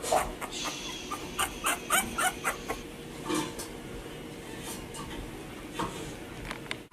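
Three-week-old puppies whimpering in a quick run of short, high squeaks, about three or four a second, that thin out to a few scattered squeaks after about three seconds.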